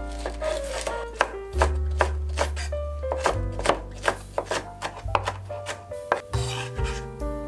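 Chef's knife mincing red and green cheongyang chilies on a bamboo cutting board: a quick, irregular run of blade strikes on the wood that stops near the end.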